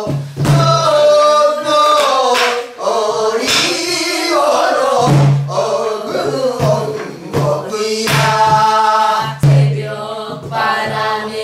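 A woman and a man singing a Namdo (southwestern Korean) folk song in a wavering, heavily ornamented style. A buk barrel drum is struck now and then, a few seconds apart.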